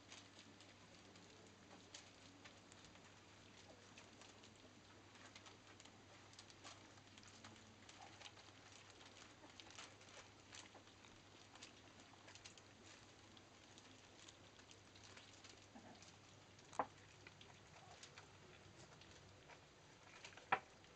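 Faint wet lapping and smacking of young Labrador puppies eating mushy food from a stainless-steel bowl, with light patter of paws and shuffling on newspaper. Two short, louder sharp sounds come in the last few seconds.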